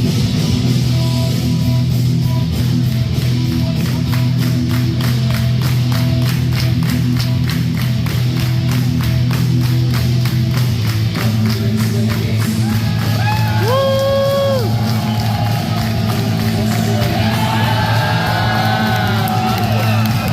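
Wrestlers' entrance music over the arena speakers: a loud rock track with a steady beat and a sung or synth melody.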